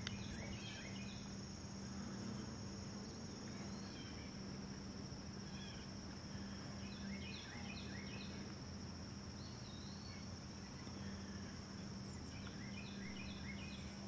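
Evening insect chorus: a steady high-pitched drone, with clusters of short chirps near the start, in the middle and near the end.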